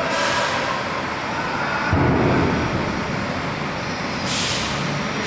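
Heavy military trucks and tank-transporter trailers maneuvering: short air-brake hisses at the start and again a little after four seconds, over a steady diesel rumble that surges about two seconds in.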